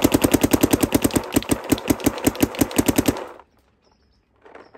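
Planet Eclipse 170R paintball marker firing a rapid, even string of shots, about ten a second, as the trigger is walked; the shooting stops about three seconds in.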